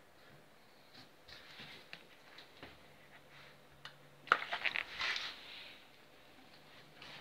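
Faint hand-handling sounds on a painted wooden bass guitar body: scattered light ticks, then a sharp click about four seconds in, followed by about a second of quick clicks and rubbing as a gloved hand wipes the body.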